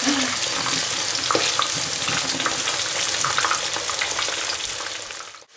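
Starch-coated chicken fillet pieces frying in hot oil in a pan: a steady sizzle with scattered crackling pops. It dies away abruptly right at the end.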